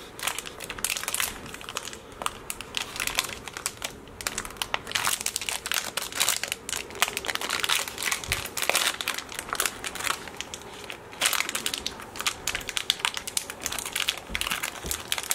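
Plastic sweet packet (Rowntree's Randoms) crinkling and crackling steadily as fingers work it open, with many quick, irregular crackles.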